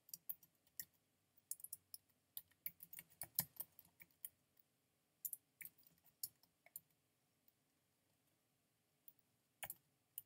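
Typing on a computer keyboard: faint, irregular runs of key clicks with short pauses, then a gap of about two seconds before a few last keystrokes near the end.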